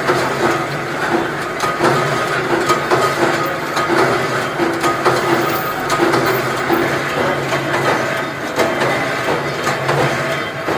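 Production machinery running with a dense clatter of rapid clicks, over a humming note that pulses a little more than once a second.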